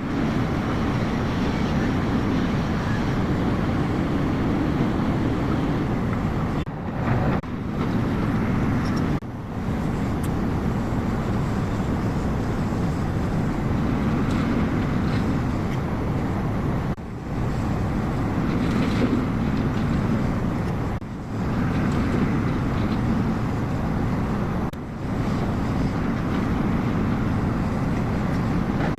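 JCB 380 excavator's diesel engine running steadily, broken by several brief dropouts.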